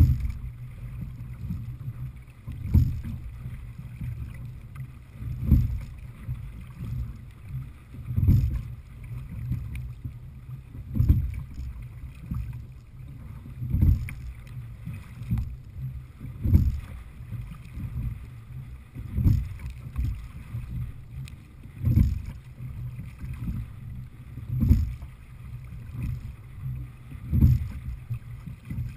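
A sculled open-water rowing boat, a Little River Marine Heritage 18, under steady rowing: a low thump with each stroke, about one every 2.7 seconds, over a continuous low rumble of water and wind.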